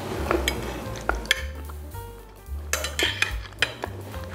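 Knife and fork clinking and scraping against a ceramic plate several times as pasta is cut and eaten.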